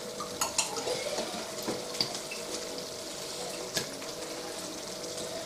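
Ketchup squeezed from a squeeze bottle into a pan of ground-pork tomato sauce: a few short wet squirts and splats, over a steady low hum.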